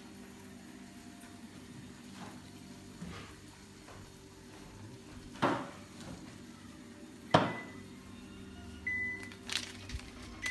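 Two sharp knocks about halfway through, over a steady low hum, with a brief high tone just after the second knock and a few lighter clicks near the end.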